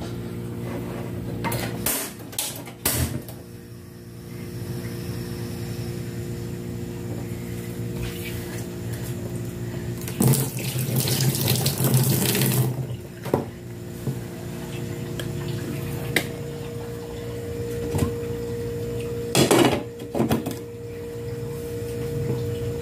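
Gas stove burner under a steel pot being turned on: a few sharp clicks early, then a loud rush of gas hiss and flame for about three seconds near the middle, over a steady low hum.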